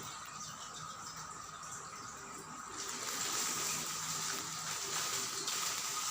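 Water running in a steady hiss that gets louder about three seconds in.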